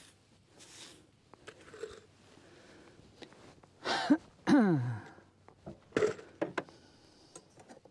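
A man coughs and then clears his throat with a rasp that falls in pitch, about halfway through. A few light knocks and clinks follow shortly after.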